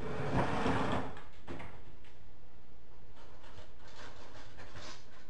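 Rummaging in a low kitchen cabinet: a cabinet door opening and things shifted about inside, with a scraping rustle in the first second, then scattered light knocks and rustles.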